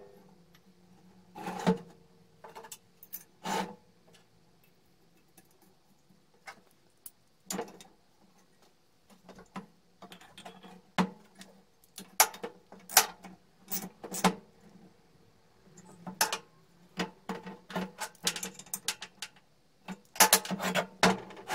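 Metal parts of a cylinder lawnmower reel and a round metal base knocking and clinking together as they are handled and fitted on a steel workbench. The clanks come irregularly, with bunches of rapid clicks towards the end.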